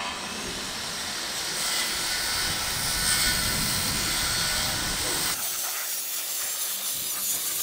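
Makita circular saw running steadily as it cuts across an oak beam. About five seconds in, the deep part of the sound drops away while the saw's higher noise carries on.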